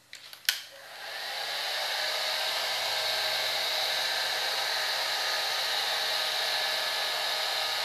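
A handheld hair dryer, blowing hot air on fresh paint. It starts up after a click about half a second in, comes up to speed over the next second, then runs steadily, with a whine over the rush of air.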